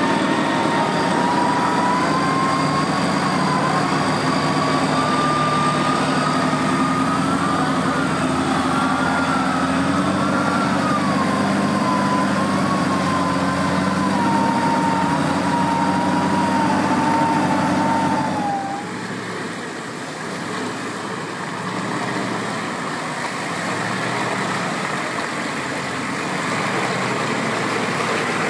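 Off-road vehicle engine running hard under load, with a high whine that wavers up and down in pitch. After about eighteen seconds the engine and whine drop away to a quieter, rougher background.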